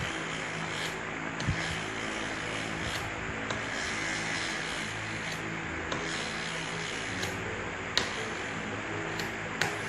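Electric gear reduction motor running with a steady whirring drone, with a few sharp clicks, one about a second and a half in and two near the end.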